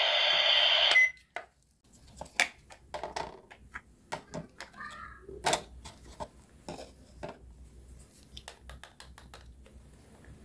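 Plastic toy kitchenware handled: light clicks and taps of a small plastic spatula, toy pan, toy food pieces and a plastic plate knocking together. A loud steady electronic sound from the toy set plays for the first second and cuts off with a short beep.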